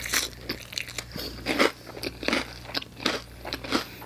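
A person chewing a mouthful of pizza topped with crunchy Hot Cheetos close to the microphone, with crisp crunches about twice a second.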